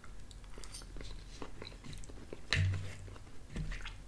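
A person chewing a mouthful of chicken pot pie close to the microphone, with small wet mouth clicks throughout and a brief low hum about two and a half seconds in.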